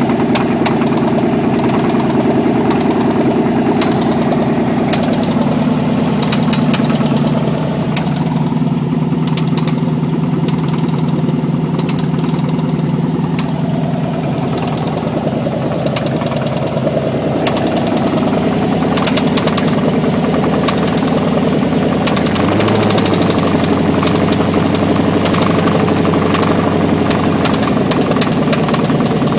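Chevrolet 305 TPI (LB9) V8 running steadily on open exhaust manifolds with no exhaust fitted, with a knock in its running that the owner takes for rod knock. The engine note shifts slightly about 22 seconds in.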